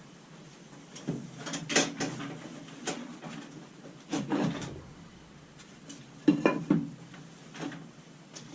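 Irregular knocks and clatter of hard parts being handled and set down, with several separate hits and the loudest pair about three-quarters of the way through.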